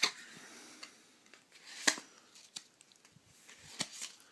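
Yu-Gi-Oh trading cards being handled and shuffled from one to the next: a few short, sharp crinkly rustles, one at the start, one about two seconds in and a close pair near the end.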